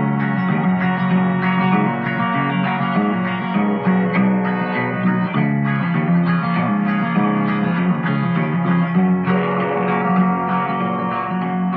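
Old-time country guitar instrumental break: a picked melody over a steady rhythm.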